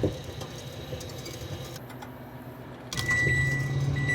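Microwave oven running with a low hum. About three seconds in there is a click, the hum grows louder, and long high beeps begin, about one a second, as the heating cycle ends.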